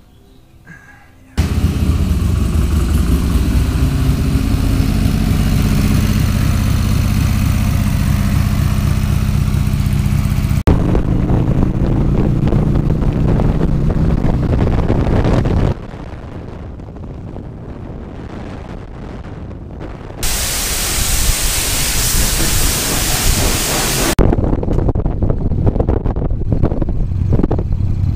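Harley-Davidson Sportster's air-cooled V-twin engine running under way, heard from a helmet-mounted camera with wind rushing over it, starting suddenly about a second and a half in. The level jumps several times: quieter with mostly low engine sound for a few seconds past the middle, then a stretch dominated by wind hiss.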